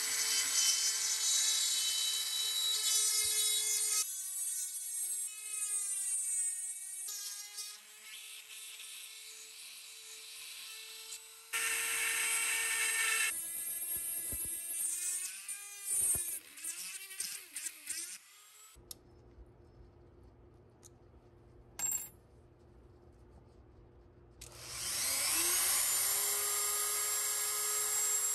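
Dremel rotary tool whining at high speed as its bit works the cast aluminum bronze knife guard, the pitch sagging and wavering in places under load. It stops for several seconds about two-thirds through, then spins back up with a rising whine near the end.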